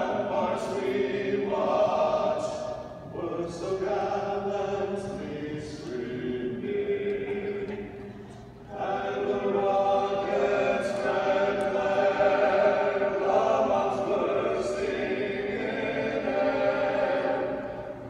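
An a cappella vocal quartet singing sustained chords in close harmony, with a short break about eight and a half seconds in before the next phrase.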